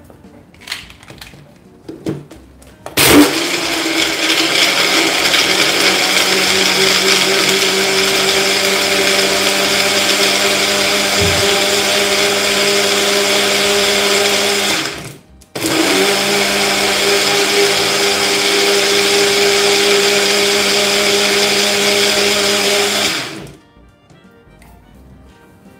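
Bullet-style personal blender's motor running, blending pineapple chunks with water. A few light clicks come first as the jar is set on the base. The motor then runs steadily for about twelve seconds, stops for a moment and runs about eight seconds more before cutting off.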